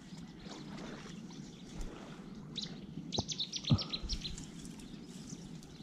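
A small bird chirps a quick run of short, high notes about three seconds in, over a steady outdoor hiss. There are two brief low thumps in the middle.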